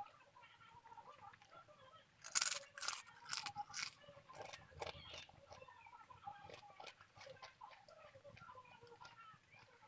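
Close-miked eating: a loud run of crisp crunching bites about two seconds in, lasting a couple of seconds, then quieter, wetter chewing.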